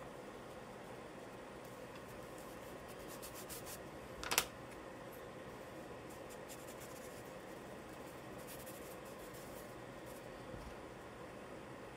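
Charcoal scratching on paper in quick drawing strokes, in two short flurries, with one sharp tap a little over four seconds in, the loudest sound; a faint steady hiss underneath.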